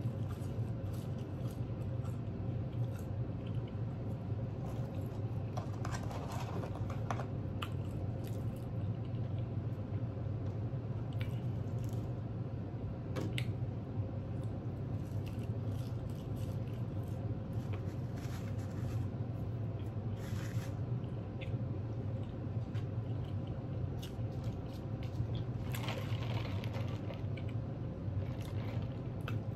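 Close-up chewing and crunching of crispy breaded chicken nuggets, with scattered small mouth clicks and smacks over a steady low hum. Near the end, a sip through a drinking straw.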